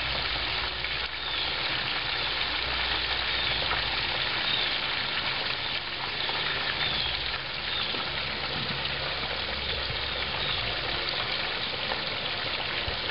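Hot cottonseed oil in a turkey-fryer pot sizzling steadily as a 20-pound turkey is lowered into it.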